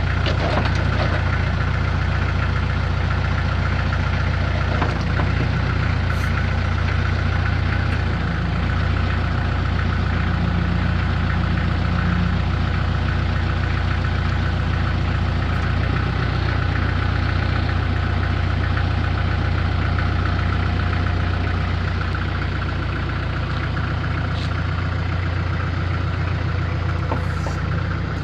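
Kubota L48 backhoe loader's four-cylinder diesel engine running steadily while its hydraulics swing and raise the backhoe boom and bucket.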